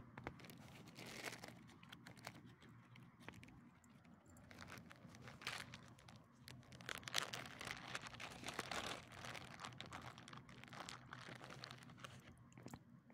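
Two small dogs eating leftover chicken: faint, irregular chewing and crunching with scattered sharp clicks.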